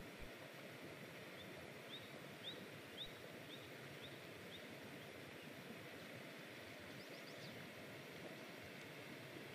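Steady rush of the river, with a small bird giving a run of short rising chirps, about two a second, and a few seconds later a quick cluster of higher chirps.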